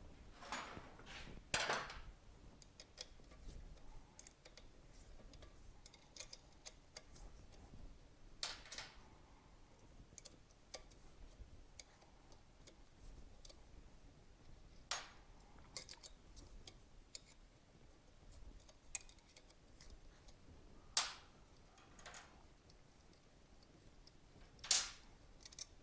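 Scattered light metallic clicks and taps of hand tools and small parts being handled during motorcycle disassembly, with a few louder clinks.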